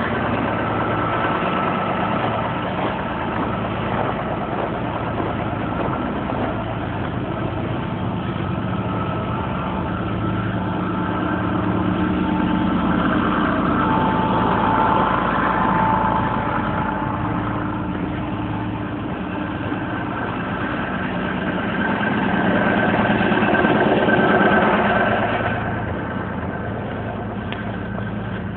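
A vehicle engine running steadily with a low hum, growing louder twice, once in the middle and once near the end, then easing off.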